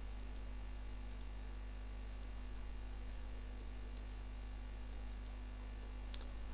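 Steady electrical mains hum on the recording, with one faint click near the end.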